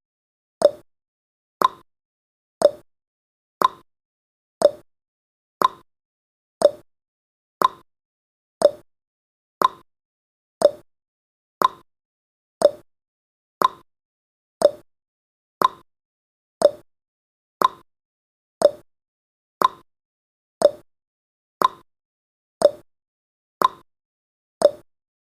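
Countdown timer's ticking sound effect: a short, clock-like tick once every second, evenly spaced.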